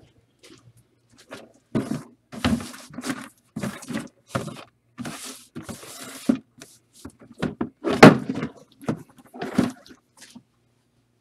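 A run of short rustling, scraping and knocking handling noises, like packaging and boxes being moved and opened, with the loudest knock about eight seconds in.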